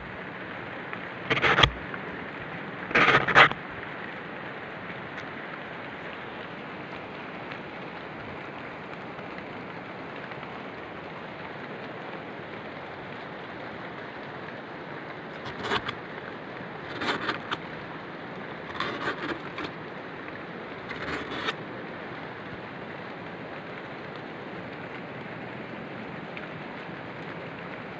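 Knife blade shaving thin slices off the cut stub of a sugar palm flower stalk: two short scraping strokes in the first few seconds, then a few fainter scrapes later on. A steady rushing hiss lies under it all.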